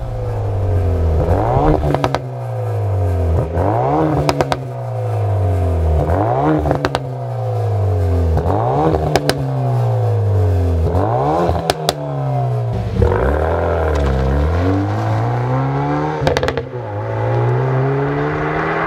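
Hyundai i30N's turbocharged four-cylinder engine through a non-resonated stainless Scorpion GPF-back exhaust, revved repeatedly about every two and a half seconds, each blip rising and falling in pitch. Crackles and pops come from the exhaust as the revs drop.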